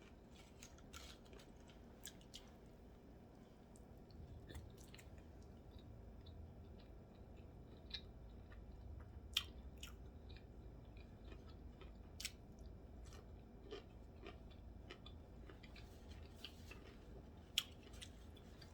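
Faint chewing and biting of food, with wet mouth sounds and a few sharper clicks.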